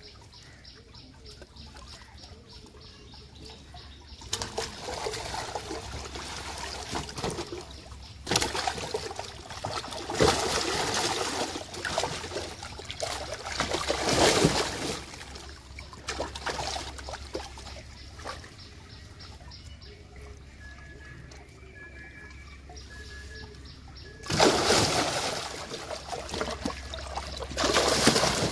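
Large fish thrashing in the water-filled, tarp-lined hold of a small boat, splashing hard in several bursts, with quieter trickling and sloshing between them. The loudest splashes come about ten to fifteen seconds in and again near the end.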